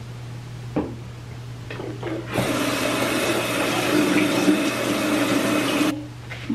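Bathroom sink tap running, with vitamin E capsules held under the stream. The water comes on about two and a half seconds in, runs evenly for about three and a half seconds, then cuts off sharply near the end, after a couple of light clicks at the counter.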